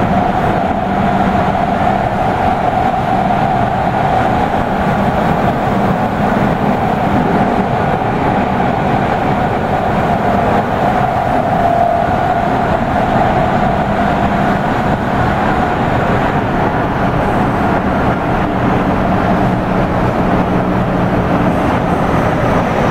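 Tokyu 5000 series electric train running through a subway tunnel, heard from inside the passenger car: a steady loud rumble of wheels and tunnel noise with a constant hum.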